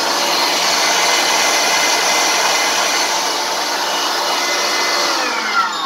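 Braun G1300 electric meat grinder's motor and reduction gearbox running empty on a test run after two of its gears were replaced: a steady motor whine with gear hum. About five seconds in it is switched off and the pitch falls as it spins down.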